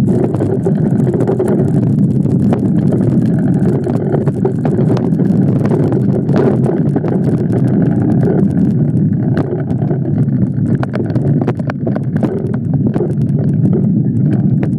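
Wind buffeting the microphone and the rumble of mountain bike tyres rolling over a dirt trail at speed, with frequent sharp clicks and knocks as the bike goes over bumps.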